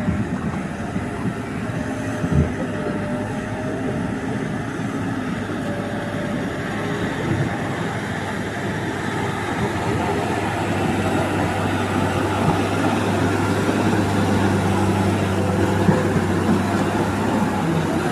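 Bus engine labouring up a steep, difficult climb, a steady drone that grows a little louder and more even about halfway through.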